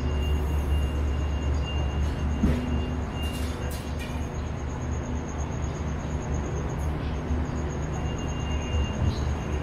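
A diesel train engine idling, a steady low rumble, with a few light knocks over it.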